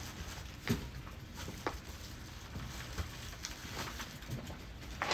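Scattered light clicks and knocks of someone working inside a car's cabin, a few seconds apart.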